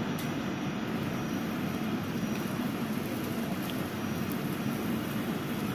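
Steady low rushing of ventilation fans and air handling, even and unbroken.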